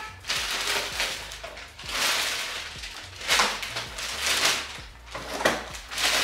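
Plastic grocery bags rustling and crinkling in several separate bursts as groceries are pulled out of them.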